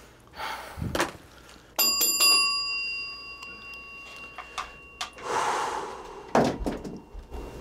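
A small bell struck a few times in quick succession about two seconds in, its clear ringing tones dying away over a few seconds. A rushing noise follows, then a single thump near the end.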